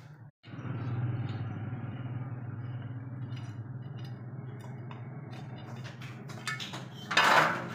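A steady engine hum like an idle, with scattered light metal clinks from work on a small motorcycle engine's clutch cover. A louder rush of noise comes about seven seconds in.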